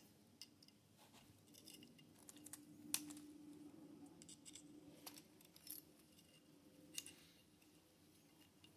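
Faint, scattered metallic clicks of small AR-15 lower-receiver parts being handled and fitted, a handful of sharp ticks a second or more apart, the loudest about three seconds in.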